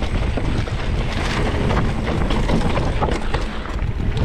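Mountain bike descending a dry dirt singletrack: wind buffeting the handlebar-mounted camera's microphone and tyres rolling over dirt, with scattered clicks and rattles from the bike over bumps.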